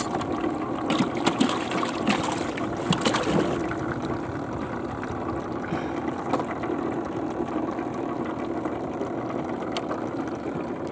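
A caught catfish splashing and knocking in water in the bottom of a small wooden boat, over a steady motor hum; the splashing dies away about four seconds in.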